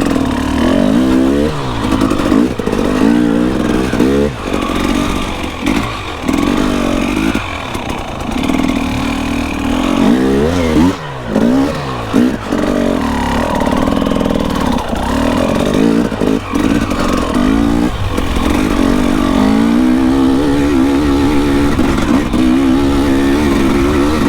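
Dirt bike engine being ridden hard on the trail, its pitch climbing and dropping many times with the throttle.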